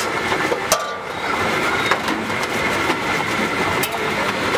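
Hot oil sizzling steadily in a large iron kadhai as a snack deep-fries, with a metal ladle clinking sharply against the pan twice, about a second in and near the end. A steady din of street traffic runs underneath.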